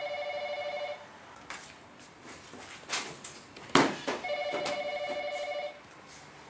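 A phone ringing with a warbling electronic ring, in two bursts about three seconds apart. Between the rings come rustling and a sharp thump, the loudest sound, as cushions are tossed aside.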